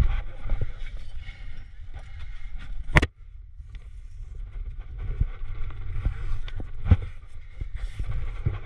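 Crack-climbing noises: scraping and rustling of taped hands, shoes and gear against sandstone, with two sharp knocks, one about three seconds in and one near seven seconds, over a steady low rumble of wind on the microphone.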